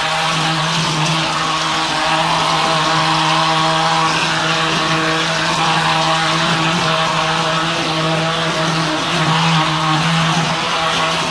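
G 54 plaster spraying machine running steadily while gypsum plaster is sprayed onto a wall: a constant machine hum with a hiss over it.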